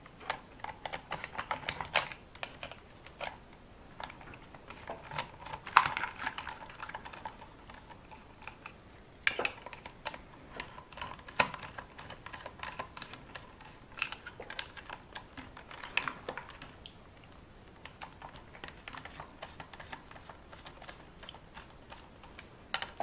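Irregular small clicks, taps and light scrapes of a hex screwdriver and fingers on a small RC car's plastic chassis as its screws are undone.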